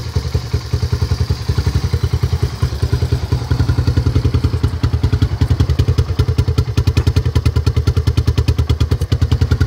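1985 Honda Big Red 250 three-wheeler's single-cylinder four-stroke engine idling through a homemade muffler: a steady, even chug of exhaust pulses with no revving.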